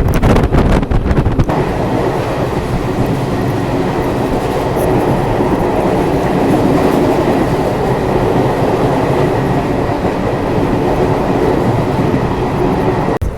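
Puri–Barbil Express passenger train running along the track: a steady, loud rumble of wheels and coaches, with gusty noise on the microphone in the first second and a half. The sound cuts off abruptly just before the end.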